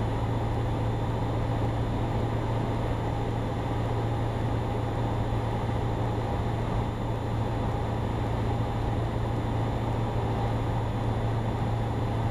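Steady drone of a Cessna 172's engine and propeller in cruise on the approach, heard inside the cockpit, with a constant low hum and even noise above it.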